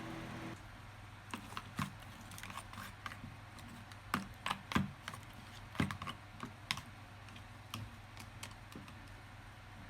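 Irregular light clicks and taps, with a few sharper knocks about four to six seconds in. A steady appliance hum cuts off about half a second in.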